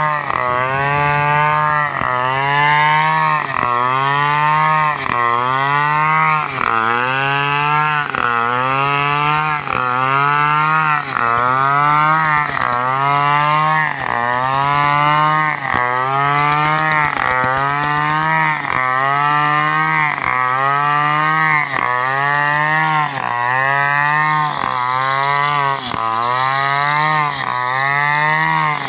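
Two-stroke chainsaw ripping lengthwise through a coconut palm trunk. The engine's pitch rises and falls in a steady cycle about once a second as the saw loads and frees up in the cut.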